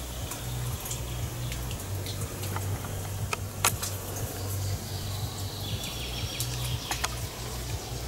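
Water lapping and dripping at the shoreline over a steady low rumble, with a few sharp clicks, the loudest about three and a half seconds in.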